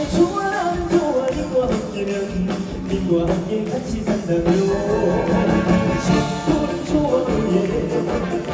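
Live military band playing an upbeat trot song, with melodic lines over a steady drum beat.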